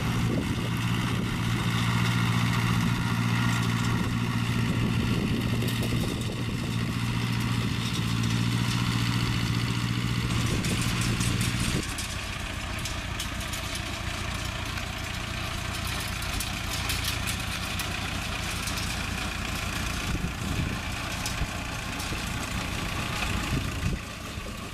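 Vintage Fiat tractor engine running steadily at an even speed while pulling a hay rake. About twelve seconds in it cuts off abruptly and a second old tractor working a rotary rake takes over, running more quietly.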